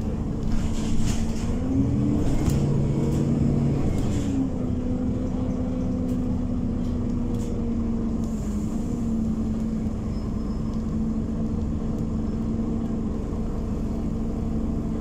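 Scania OmniCity diesel city bus engine running with its cooling fan, heard from inside the cabin. The pitch rises about two seconds in and holds for a couple of seconds among light rattling clicks, then settles back to a steady hum.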